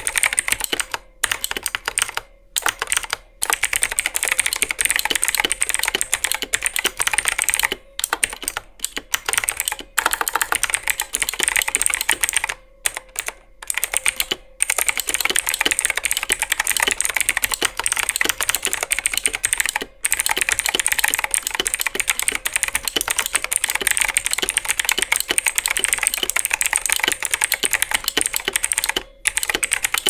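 Typing on a cheap full-size mechanical keyboard with unbranded clicky blue switches in a thin, hollow all-plastic case: fast, continuous clicking broken by a few short pauses. It is very loud, with a hollow, pingy ring from the case and springs.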